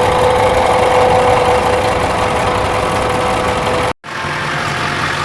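A running truck engine heard through a mechanic's stethoscope whose probe is on the back side of the bottom pulley: a solid, steady hum with a constant whine and no clanking or grinding in it, so that pulley's bearing is not the noisy one. It cuts off abruptly about four seconds in, and the engine idling is then heard directly.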